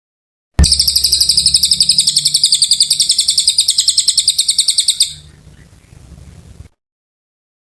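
A cililin songbird singing a long, rapid trill of high, evenly repeated notes. It starts abruptly about half a second in, drops off sharply about five seconds in, and trails faintly before cutting off.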